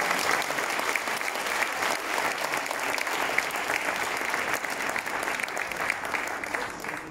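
Audience applauding, the clapping slowly thinning and dying away near the end.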